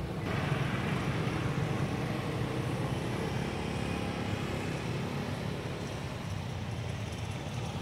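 Small motor vehicle engine running steadily, a low rumble with road noise.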